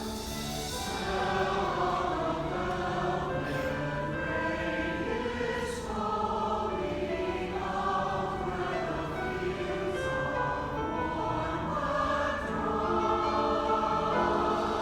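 A mixed choir singing in harmony, holding long notes in several parts.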